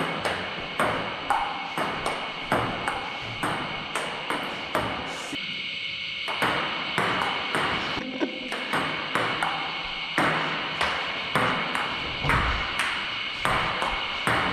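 Table tennis ball clicking off the paddles and the table in a rally, about two hits a second, with a short break about five seconds in before play resumes.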